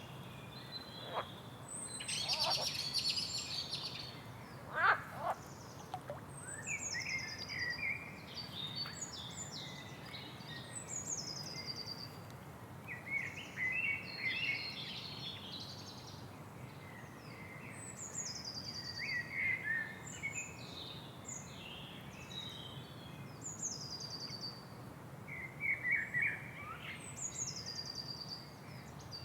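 Several birds calling over a steady background hiss: a high call that slides down in pitch, repeated every few seconds, mixed with bursts of quick chattering notes.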